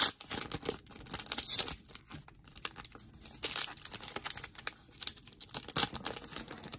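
Foil trading-card pack wrapper being torn open and crinkled by hand: a run of irregular sharp crackles and rips, the loudest right at the start. The wrapper is hard to open, so the tearing comes in several goes.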